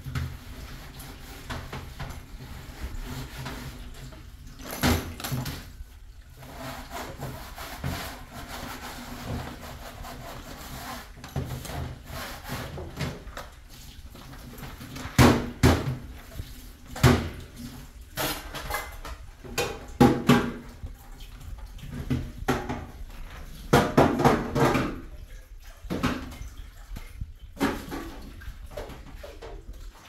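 Dishwashing at a metal sink: water running and splashing from a hose, with repeated clattering knocks of pots and plastic bowls, several sharp ones in the second half.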